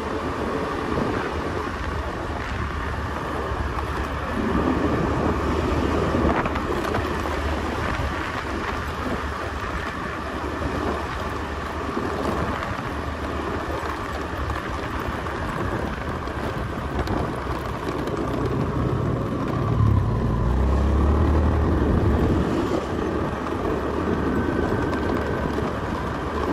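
Motorcycle running along a road, its engine rumble mixed with wind buffeting the microphone, swelling louder a couple of times.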